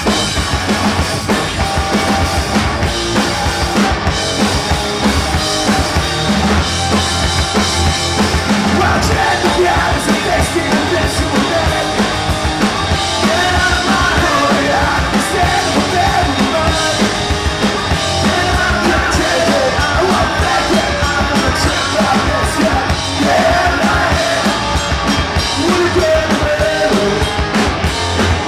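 Loud rock music played by a band, driven by a drum kit, with a wavering lead line over it from about a third of the way in.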